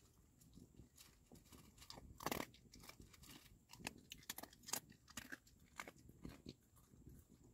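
A dog eating dry kibble: faint, irregular crunches as it bites and chews the pellets, the sharpest about two seconds in and again near five seconds.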